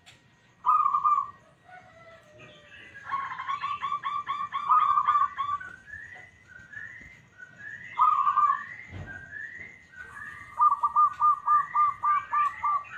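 Zebra dove (perkutut lokal, the local type) cooing: a single clear note about half a second in, then fast staccato runs of cooing notes, the last a quick train of about nine notes near the end. Short rising chirps come between the phrases, and there is a dull knock about nine seconds in.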